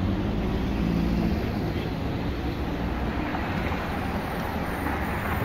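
Cars driving through a city intersection: a steady rumble of engines and tyre noise, with an engine hum standing out in the first second or so.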